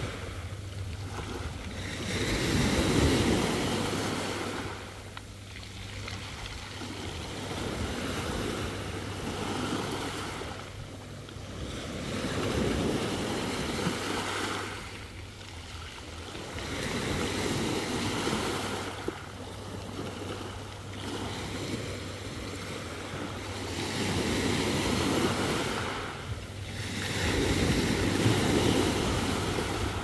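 Small sea waves breaking and washing up a pebble shore, the surf swelling and falling back every few seconds.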